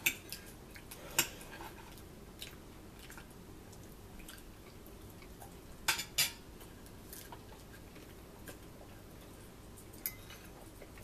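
Forks clinking and tapping on plates as people eat: a handful of separate sharp clinks, the loudest two close together around six seconds in.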